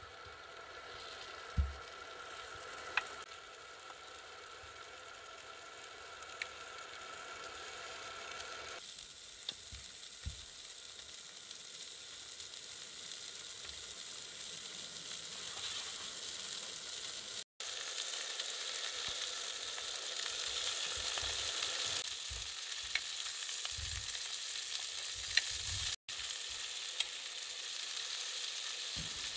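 Lamb chops sizzling and frying in a hot pan, the sizzle growing louder and fuller as they sear, with a few light clicks along the way. The sound breaks off for an instant twice.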